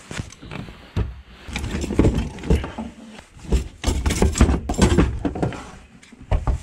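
Power tools and wire wheels clattering and knocking against each other and the wooden locker as a hand rummages through them and lifts out an angle grinder with a wire cup brush. The knocks come irregularly, in loud clusters.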